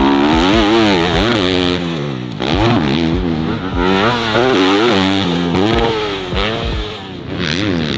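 Motocross dirt bike engine revving on a track, its pitch climbing and dropping again and again as the rider works the throttle and gears.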